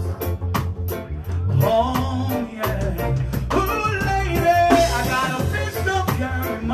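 Live band playing a slow reggae-style song: a male singer's melodic vocal over electric bass guitar and a steady beat.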